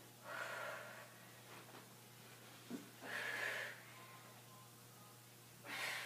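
A woman breathing hard from exertion: three forceful breaths, each a short rush of air, about three seconds apart.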